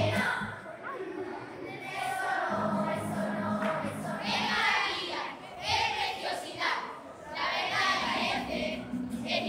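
A children's carnival murga singing in chorus on stage, many young voices together with music.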